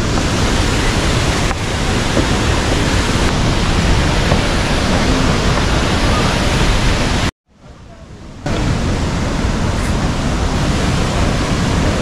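Nafakhum waterfall on the Remakri stream, running high and muddy, making a loud, steady rush of falling water. The sound cuts out for about a second a little past the middle.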